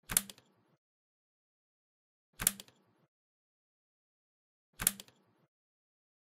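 Three identical sharp clicks about two and a half seconds apart, each with a brief decay: a virtual lab simulation's sound effect as test leads are connected to the resistor terminals.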